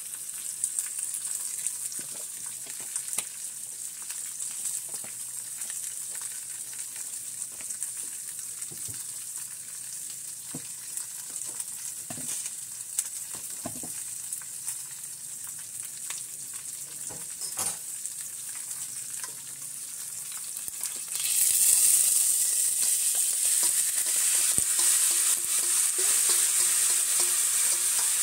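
Cooking oil heating in a stainless steel pot, with a faint high sizzle and scattered small pops. About three-quarters of the way in, chopped green peppers and onions are tipped into the hot oil and the sizzle jumps suddenly to loud and steady, with a spoon scraping them in from another pan.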